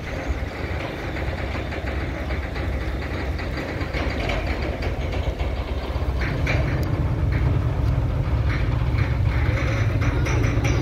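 Heavy lorry engine running steadily, getting louder and deeper about six seconds in, with scattered light clicks and knocks over the rumble.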